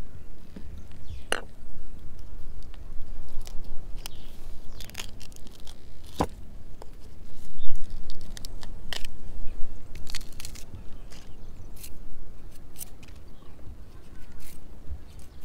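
Bamboo shoots being prepared by hand for cooking: irregular tearing and scraping with scattered sharp clicks, the sharpest about six seconds in.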